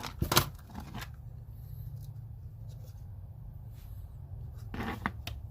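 Clicks and rustling of a small tool set and its packaging being handled, loudest in a quick cluster just after the start and again near the end, over a steady low hum.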